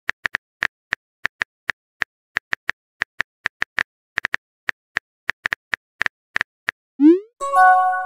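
Texting-app keyboard tap clicks, a quick irregular run of about four a second as a reply is typed. About seven seconds in they stop, and the message is sent with a short rising whoosh and then a held chime.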